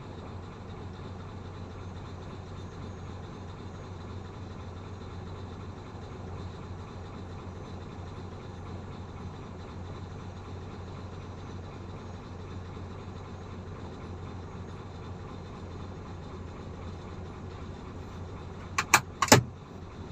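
Caterpillar 320 hydraulic excavator's diesel engine running steadily. Near the end, a quick cluster of three or four sharp knocks stands out over the engine.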